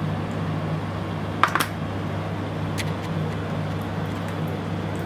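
A steady low hum throughout, with a short sharp clatter about a second and a half in as a raw chicken piece is set down on a steel tray, and one fainter click a little later.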